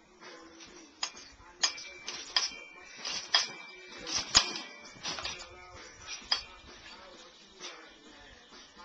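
Metal trampoline springs clinking and clanking irregularly as a child bounces and lands on the mat, some clinks ringing briefly; the loudest comes about four seconds in.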